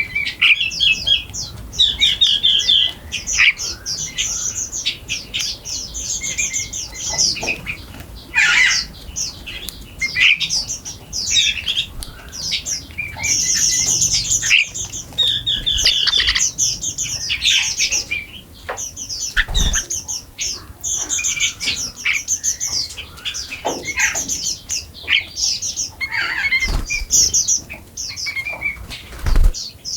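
A flock of small birds chirping and squawking continuously, many short high-pitched calls overlapping one another, with a few brief low thumps in the second half.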